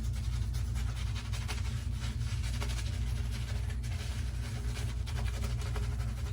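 Synthetic shaving brush whisking Arko shave-soap lather, a quick, rhythmic wet swishing of many strokes a second as water is worked into the soap.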